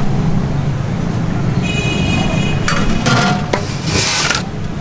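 Pulao being scooped from a large cooking pot into a metal plate: two scraping, rustling scoops about three and four seconds in, over a steady low background rumble. A short high-pitched ring sounds about two seconds in.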